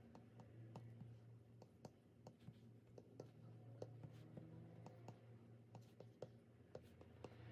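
Faint, irregular taps of an Apple Pencil tip on an iPad's glass screen, a few a second, over a low steady hum.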